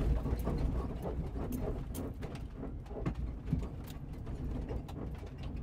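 Jeep Cherokee XJ driving slowly over a rough dirt trail: a steady low engine and tyre rumble with frequent small clicks, knocks and rattles.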